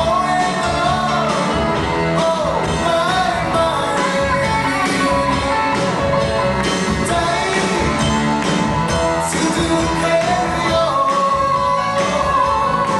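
Live band performance of a pop-rock ballad: a man sings lead over acoustic and electric guitars and drums, played loud and steady.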